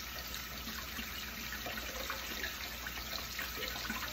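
Two steaks sizzling steadily in a hot frying pan, crowded in together.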